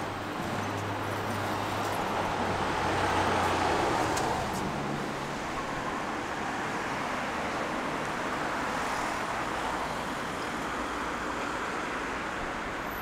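City street traffic noise: a steady hum of passing cars, swelling as one vehicle goes by about three to four seconds in.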